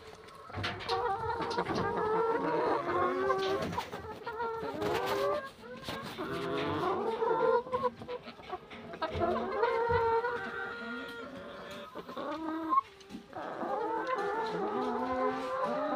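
A flock of hens clucking and calling over one another, many overlapping drawn-out calls throughout: hungry hens waiting for their morning feed.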